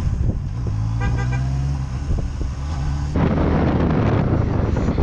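Motorcycle engine running on the move. About a second in, a horn sounds a quick run of short toots. After about three seconds the sound switches abruptly to a louder rush of wind and engine noise from another ride.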